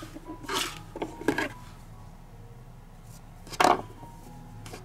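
Hands handling crocheted work and yarn while fastening off: three short rustling scrapes, the loudest about three and a half seconds in.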